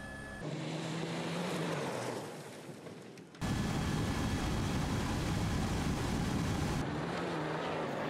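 Off-road rally vehicle engines running at speed under heavy noise, in short shots that change abruptly twice; an engine note falls away about two seconds in.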